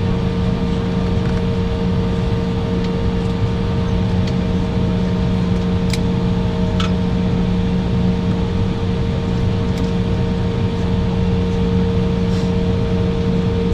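Steady cabin drone of an Embraer 195 airliner on the ground, a constant low hum with a steady mid-pitched tone above it, and a few faint clicks.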